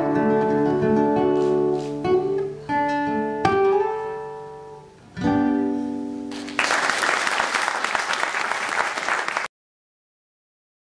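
Acoustic guitar playing the closing chords of a song, a final strummed chord ringing out. About a second later an audience applauds, and the applause cuts off abruptly after about three seconds.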